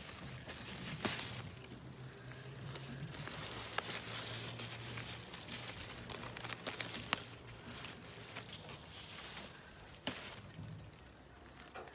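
Handling noise from a handheld phone among leaves: light rustling with a few sharp clicks spread through it, over a low steady hum that fades about nine seconds in.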